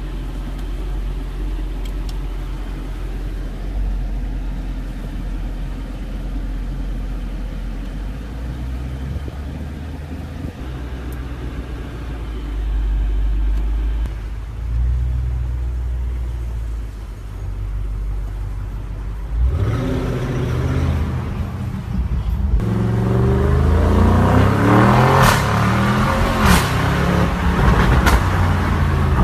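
Tuned 730 hp Audi RS6 engine and exhaust: a low, steady rumble for about the first two-thirds, then repeated revs that rise and fall, with sharp pops and crackles from the exhaust in the last few seconds.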